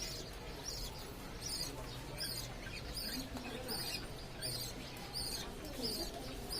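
Parrot chirping over and over, short high falling chirps at an even pace of a little more than one a second.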